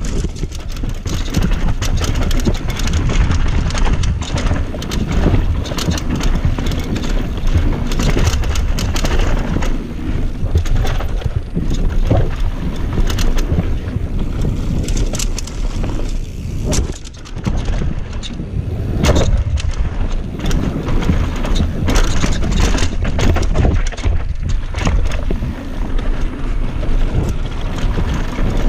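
Mountain bike descending a dirt forest trail at speed: wind buffeting a head-mounted microphone over the rumble of tyres on dirt, with frequent sharp rattles and knocks from the bike over bumps. The noise eases briefly about two-thirds of the way through.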